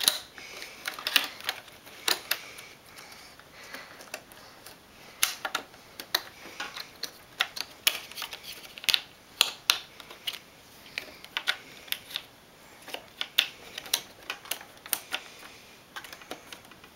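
Irregular clicks and taps of hard plastic as trading cards and small toy parts are handled and pushed into the slots of a plastic toy vault playset.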